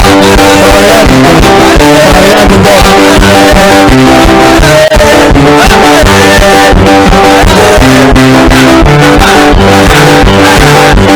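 Loud music with guitar and bass over a steady beat.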